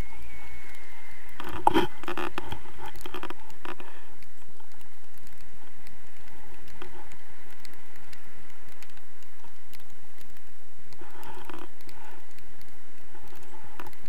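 Airflow buffeting an action camera's microphone in flight under a tandem paraglider, a steady rushing rumble. A short rustling scrape comes about two seconds in, and fainter rustles come near the end.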